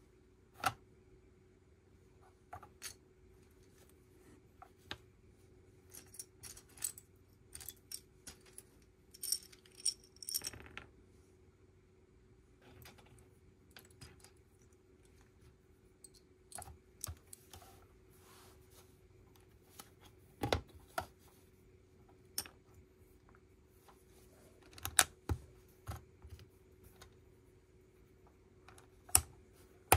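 Plastic Lego pieces clicking and clattering as they are handled and pressed together: scattered sharp clicks, with a busier rattle of pieces about ten seconds in.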